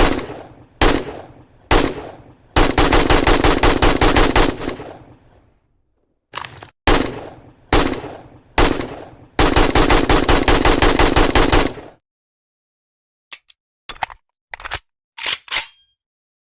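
AK-47 rifle gunfire: three single shots, then a burst of automatic fire lasting about two seconds. Four more single shots follow, then a second automatic burst of about two and a half seconds. Near the end there are a few short sharp clicks.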